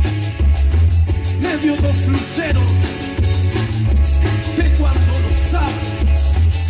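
Live band playing amplified music: electric guitars, keyboard and drum kit over a heavy bass line and a steady beat, with a man singing into a microphone in places.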